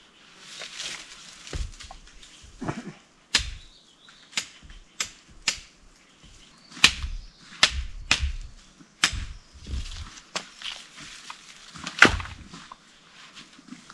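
A blade chopping and trimming jungle cane (small bamboo): about a dozen sharp, irregular strikes with rustling of leaves and stems between, the loudest near the end.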